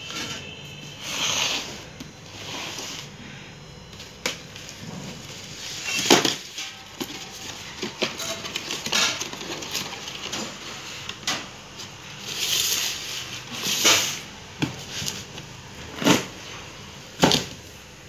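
Cardboard fireworks boxes being handled and opened by hand: scattered knocks and taps with short rustles of the cardboard flaps.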